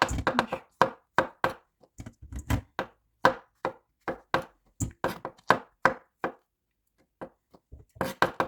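Kitchen knife chopping vegetables on a cutting board: steady sharp strokes about two to three a second, with a brief pause about seven seconds in.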